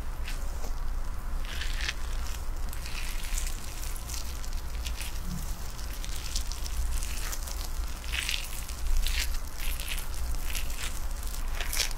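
Hands rubbing and massaging through wet hair at the scalp and neck, giving soft, scattered crackles and rustles over a low steady hum.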